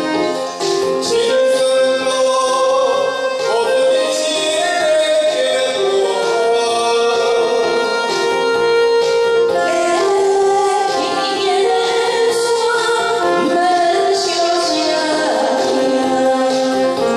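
A woman and a man singing a Taiwanese Hokkien duet over a backing track.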